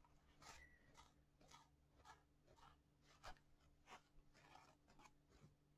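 Near silence with faint, soft scratching strokes about twice a second: a felting needle being combed through loose wool fibres to smooth them out.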